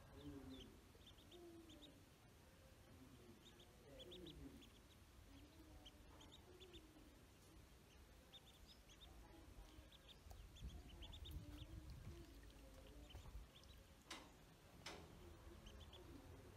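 Faint peeping of ducklings: short high chirps in quick clusters, with lower wavering calls underneath. Two sharp clicks near the end.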